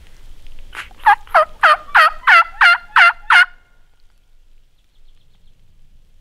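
Turkey hunter's crow locator call, blown in a rapid series of about nine sharp, downward-sweeping caws at about three a second, then stopping. It is meant to provoke a shock gobble from turkeys out of sight.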